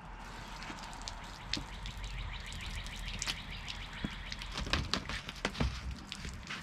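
Scattered clicks and knocks of an RV sewer hose and its fittings being handled, with a few sharper knocks in the second half, over a low steady hum.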